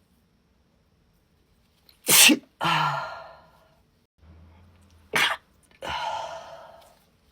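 A woman sneezing twice in a sneezing fit, about three seconds apart. Each sneeze is a sharp, loud burst followed by a longer tail that fades away.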